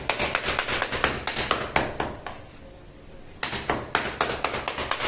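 Knife chopping on a cutting board in quick, even strokes, about four a second, pausing for about a second partway through and then going on.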